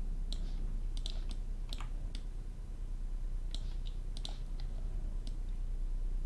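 Scattered clicks from a computer keyboard and mouse, a dozen or so at irregular intervals, over a steady low hum.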